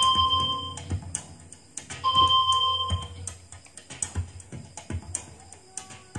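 Synthesizer background music with a steady beat from a karaoke player's built-in card game. Two short electronic chime tones sound, one at the start and one about two seconds in, and the music cuts off abruptly at the end.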